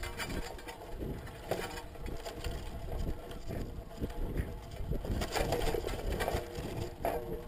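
Irregular knocking and rattling over a low rumble from a high-altitude balloon payload and its GoPro camera housing, tumbling in near free fall with the parachute unable to open in the thin air.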